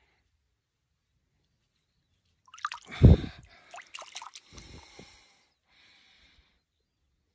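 Water splashing and dripping at a lake's edge as a caught trout is released: a couple of quiet seconds, then one sharp splash about three seconds in, followed by smaller drips and sloshes for another two seconds.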